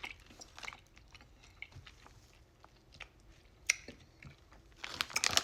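A person quietly chewing a lemon Sour Punch gummy candy, with small scattered mouth clicks and one sharper click past the middle. Near the end, packaging crinkles.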